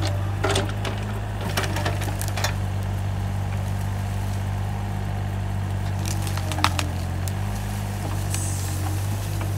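Takeuchi TB135 mini excavator's diesel engine running steadily under load while its bucket tears a stump and brush out of the ground. Roots and branches snap and crack, several sharp cracks in the first couple of seconds and again about six seconds in.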